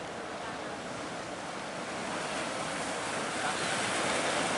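Ocean surf rushing and breaking, with wind buffeting the microphone; the rush swells louder about halfway through.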